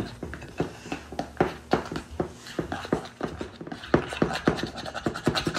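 Metal spoon stirring a thick, gloopy honey spread in a ceramic bowl: quick, irregular clicks and scrapes of the spoon against the bowl, a few a second.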